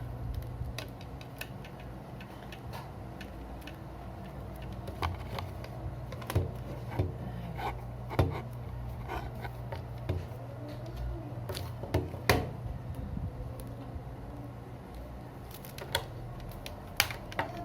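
Irregular clicks and knocks of plastic parts being handled and fitted together as a ring light and its stand are assembled. The loudest knocks come about eight and twelve seconds in, over a steady low hum.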